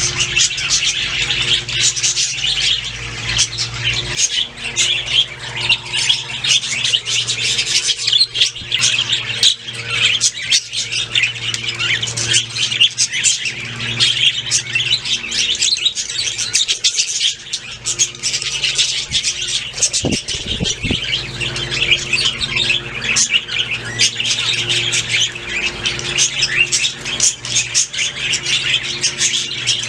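A flock of budgerigars chattering and chirping without a break, many birds calling over one another, with a steady low hum underneath.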